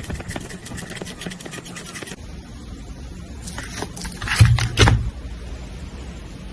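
Paper and stationery being handled on a desk for journaling: quick scratching strokes for about two seconds, then quieter rustling with two soft knocks a little past the middle.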